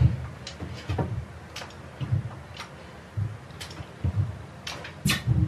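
Hand caulking gun clicking as its trigger is squeezed again and again, pushing out dabs of silicone along a timber batten: short sharp clicks, roughly two a second at an uneven pace, most with a low knock.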